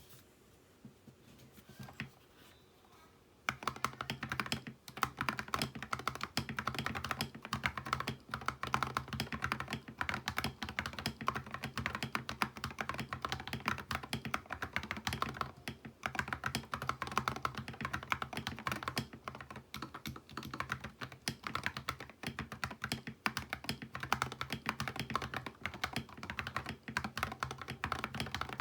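Fast, continuous typing on an RK84 mechanical keyboard with Akko Radiant Red linear switches and ceramic keycaps, a dense run of key clacks that starts about three and a half seconds in after a few faint clicks.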